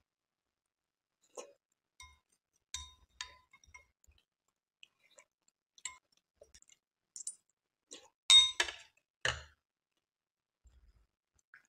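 Metal spoon clinking against a glass bowl as kheer is scooped: several light, separate ringing clinks. The loudest clatter comes about eight seconds in, when the spoon is set down on the tray, followed by one more knock.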